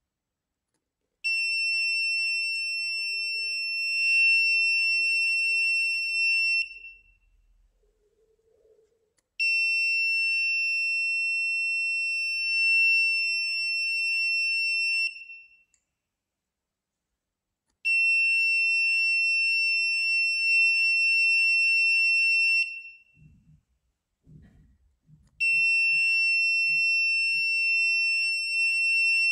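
Gas-leak alarm buzzer on an Arduino UNO sounding a steady high-pitched tone four times, each lasting about five and a half seconds with short silent gaps between. It is the alarm signalling that the MQ-4 sensor has detected methane.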